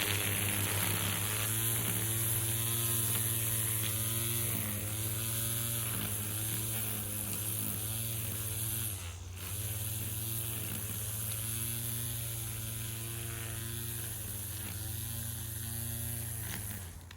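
A small electric motor running steadily, its pitch dipping and recovering several times as if under changing load, with a short break about nine seconds in; it stops near the end.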